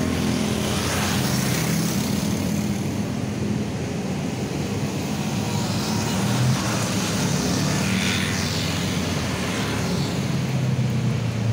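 Road traffic: a steady engine hum with vehicles passing by, swelling about a second in and again around the middle.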